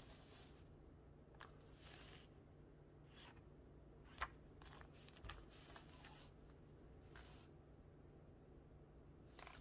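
Faint, soft rustling of a paper instruction booklet being handled in a few brief touches, with one sharp click a little past halfway.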